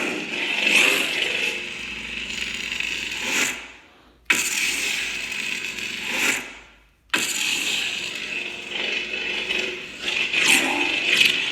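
Kylo Ren sound font on a Sabertrio Senza lightsaber's Crystal Focus X soundboard: a crackling, unstable blade hum with swing swooshes. Twice the blade powers down, fading out, and a moment later ignites again with a sudden burst.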